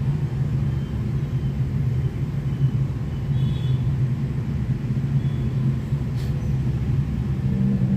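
A steady low hum and rumble that runs evenly throughout, with no sharp events.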